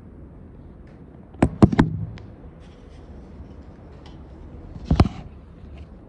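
Sharp knocks from a ceiling-fan blade and motor housing being handled: three quick knocks about a second and a half in, then one more about five seconds in.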